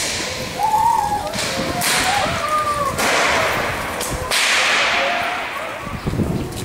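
Tlacololero dancers' rope whips cracking, about five loud sharp cracks spread over a few seconds, each followed by a long fading echo.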